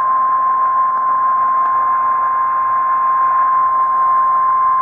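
Emergency alert tone of the kind used by NOAA Weather Radio for a warning: a single steady, unbroken high tone, held over a steady hiss.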